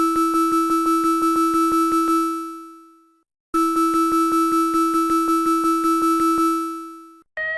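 Synthesized emergency alert alarm: a steady, buzzy tone pulsing about six times a second, sounded in two blasts of about three seconds, each fading out, with a short gap between. Right at the end a different alarm tone with rising pitch begins.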